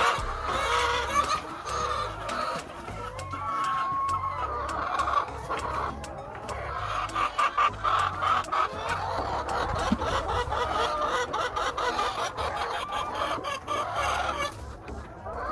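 A flock of laying hens clucking, with overlapping calls and many short clicks, thickest from about six to eleven seconds in.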